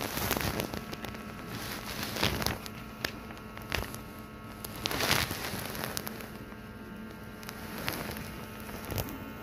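Crackling, rustling handling noise as a phone moves against hospital bed sheets, with irregular sharp crackles over a steady low hum.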